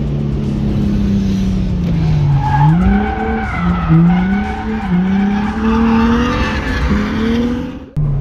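Nissan 350Z's V6 engine heard from inside the cabin, its revs repeatedly dropping and climbing through the corners, with tyres squealing as the car slides. The sound cuts off abruptly just before the end.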